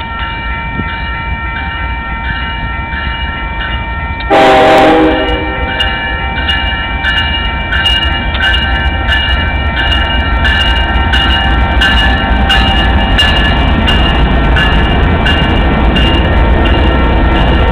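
Union Pacific intermodal freight train approaching and passing with its diesel locomotives, the train sound growing louder as it comes close. A grade-crossing bell rings about twice a second throughout, and the locomotive horn gives one short blast about four seconds in.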